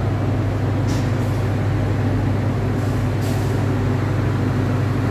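Diesel engine of a standing passenger train idling: a steady low drone with a hum, unchanging throughout.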